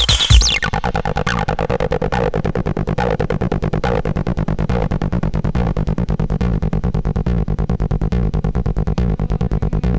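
Live hardware techno: about half a second in, the kick drum and hi-hats drop out, leaving a fast, evenly repeating synthesizer bassline with a swelling mid-range synth sound over it.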